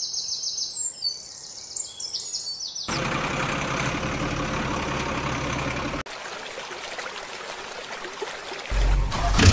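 Birds singing with quick repeated chirps for the first three seconds. Then a vehicle engine running cuts in suddenly, breaks off about six seconds in, and a deeper, heavier engine starts up near the end.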